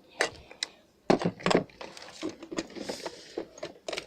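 Irregular clicks and knocks of small tools and parts being handled and set down on a workbench during a mouse cable repair.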